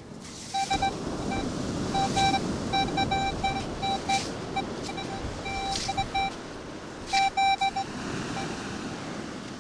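Metal detector sounding its target tone over a buried piece of metal: a steady beep that comes in short stutters and longer bursts as the coil sweeps back and forth. A few short crunches come between the beeps.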